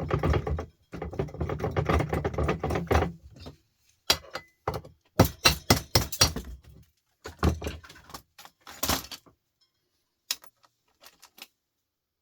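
Scrap parts being handled and taken apart on a workbench. A dense rattling clatter for about three seconds gives way to a run of separate knocks and clicks, which thin out to a few faint ticks near the end.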